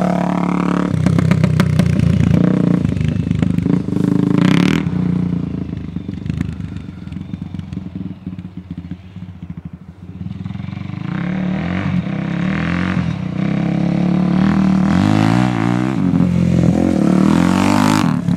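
2007 Suzuki DR-Z 400S single-cylinder four-stroke engine through a straight-pipe exhaust, revving hard as the dirt bike rides away. It fades to its quietest about halfway, then grows loud again with rising and falling revs as the bike comes back and passes close.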